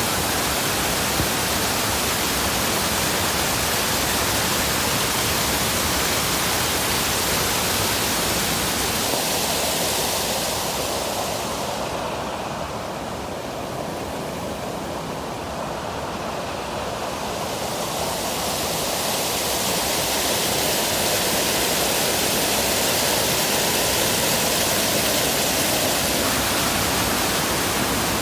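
Bracebridge Falls on the Muskoka River: the steady rush of falling water. The hiss dulls and softens for a few seconds around the middle, then comes back full.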